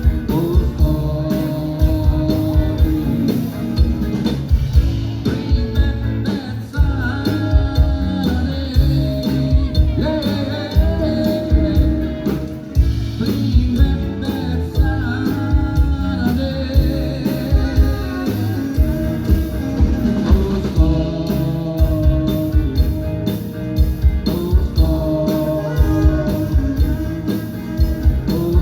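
Live band music with a singing voice over drum kit, bass and guitar.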